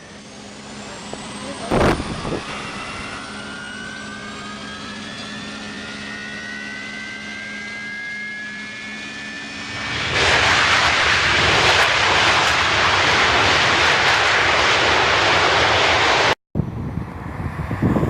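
Boeing 737-200's Pratt & Whitney JT8D turbofans spooling up with several rising whines, then a loud, steady roar at takeoff thrust from about ten seconds in. There is a short sharp knock about two seconds in, and the sound drops out for an instant near the end.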